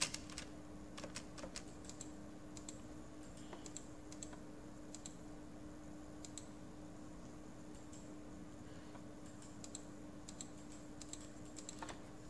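Computer keyboard keys and mouse buttons clicking sparsely, a few at a time in small clusters, over a faint steady hum.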